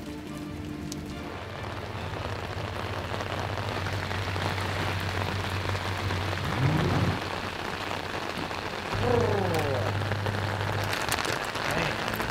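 Steady rain falling, with background music underneath and two brief sliding tones a couple of seconds apart near the middle.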